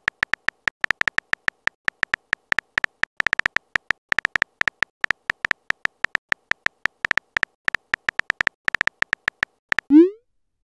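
Simulated phone-keyboard typing: a fast, irregular run of short electronic beeps at one pitch, one beep per letter typed. About ten seconds in, a short upward swoop plays, the sound of the message being sent.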